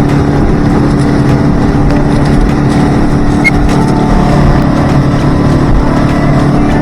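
Motorboat engine running steadily while under way, a constant hum over a loud rush of wind and water.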